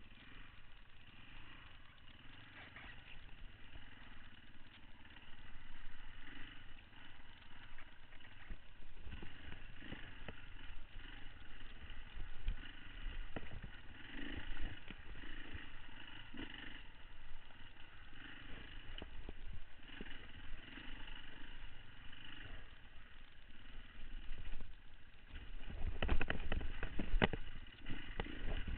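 Beta 525 RS four-stroke single-cylinder dirt bike running as it is ridden over a rough forest trail, with the bike clattering over bumps. A run of loud knocks and clatter comes near the end.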